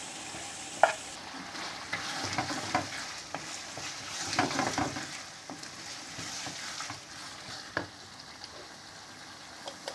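Minced meat sizzling in a nonstick frying pan with chunks of onion and tomato just added, stirred with a wooden spatula: a steady frying hiss broken by sharp knocks and scrapes, the clearest about a second in, a cluster in the middle and one near eight seconds.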